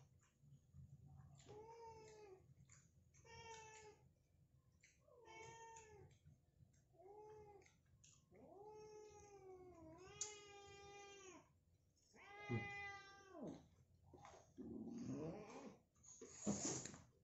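A domestic cat meowing again and again: about seven drawn-out meows, some over a second long, followed by a few rougher, noisy sounds near the end.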